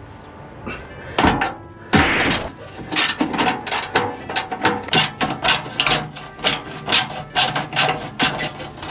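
Ratchet wrench clicking in a quick regular run, about four or five clicks a second, as a bracket bolt is run in against the exhaust heat shield. A short scraping rush comes first, about two seconds in.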